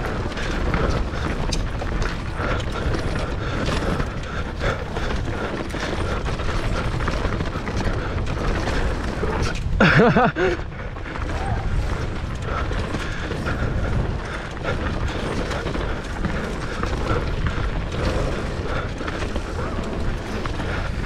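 Mountain bike rattling over a rough downhill trail: a steady clatter of chain, frame and freehub with low wind and tyre rumble on the microphone. A short, louder pitched sound about halfway through.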